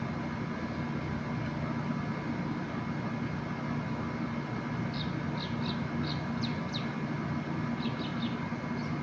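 A steady hum runs throughout. Over it come quick, high bird chirps in two short runs, starting about halfway and again near the end.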